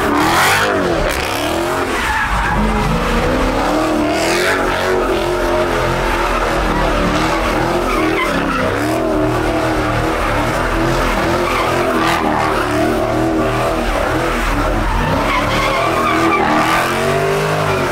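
A car drifting on pavement, its engine held high in the revs with the pitch wavering up and down, tires squealing.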